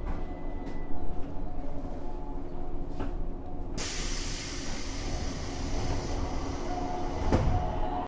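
A JR 103-series electric train car, heard from above its traction motor: a steady low rumble with a few sharp knocks. About four seconds in, a loud hiss sets in suddenly and carries on to the end.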